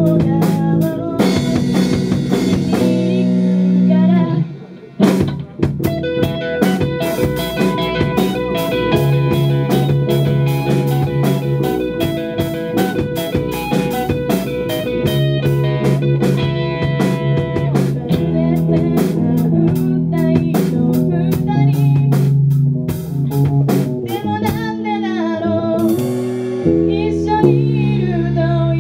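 Live rock band music: electric guitar and drum kit, with a girl singing. The band cuts out briefly about five seconds in, then comes back in, and the singing is clear again near the end.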